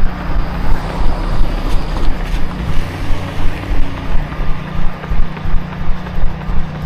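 A runner's footfalls jolting a body-carried camera, nearly three a second in a steady rhythm, over wind rumbling on the microphone and a steady low hum.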